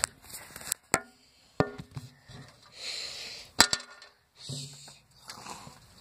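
Phone handling noise: about six sharp knocks and taps, two of them followed by a brief ringing tone, with bursts of rustling as the phone is moved and covered.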